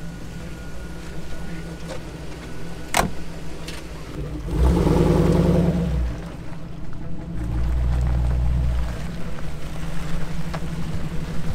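Off-road recovery rig's engine running steadily, louder in two stretches about five and eight seconds in, with one sharp knock about three seconds in.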